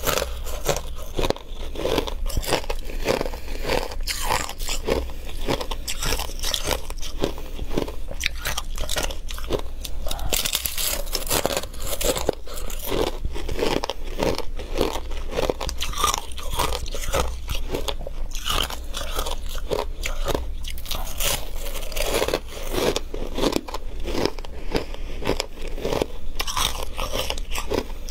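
Close-miked biting and chewing of flaky freezer frost, a dense run of crisp crunches throughout.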